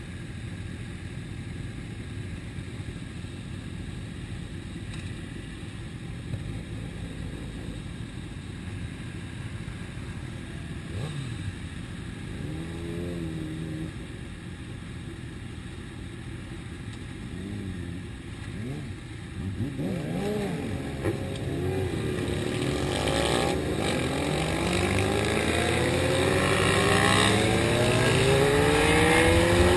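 Motorcycle engine running under wind rush, its revs rising and falling a few times midway, then accelerating hard with the engine note climbing steadily and growing louder over the last several seconds.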